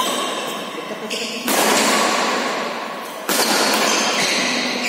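Badminton rackets striking a shuttlecock during a doubles rally: three sharp hits about a second and a half to two seconds apart, each echoing in a large indoor hall.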